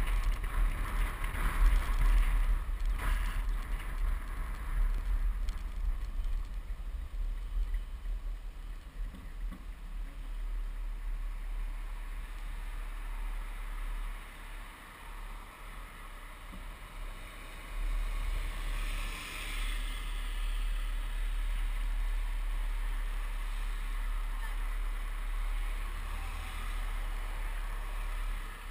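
Car driving: a low rumble of road and wind noise, which eases about halfway through as the car comes to a stop. Traffic hisses past a few seconds later.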